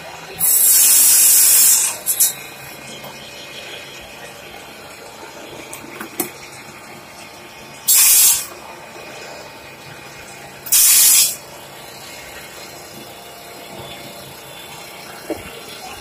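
Bone-and-meat cutting machine being worked, giving three loud bursts of hiss that start and stop sharply: the first about a second and a half long, followed by a couple of quick clicks, and two shorter ones later on.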